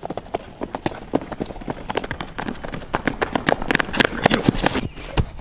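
Running footsteps of several people, quick irregular slaps, growing louder in the second half as the runners draw near.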